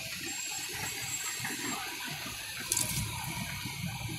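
Fire hose stream spraying water onto a burning car, a steady rushing hiss, with a brief sharp noise a little past halfway.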